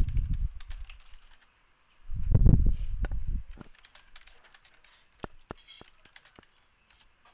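Typing on a computer keyboard: a quick run of key presses at the start, another about two seconds in, then a few single taps near the end.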